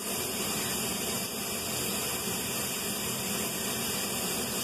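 Aluminium stovetop pressure cooker venting steam through its weight valve: a steady loud hiss, the whistle that marks it has come up to pressure.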